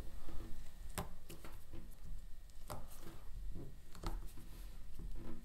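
Fingers picking and snapping small bits of cured RTV silicone off a silicone mould, with a few sharp clicks, the clearest about a second in and near three seconds, over faint handling noise.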